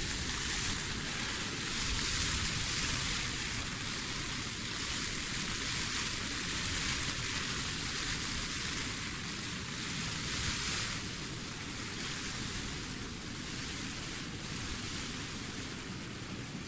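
Steady rushing hiss of the weather on a dome tent's flysheet, heard from inside the tent. It eases a little in the second half.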